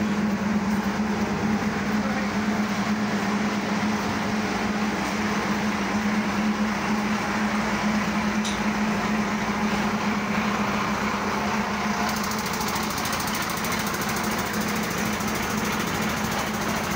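A bus engine idling steadily with a constant low hum, under the murmur of a queue of people.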